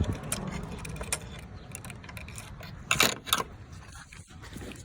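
Small metallic clicks and rattles from the removed hood latch being handled, with a louder clatter of several quick clicks about three seconds in.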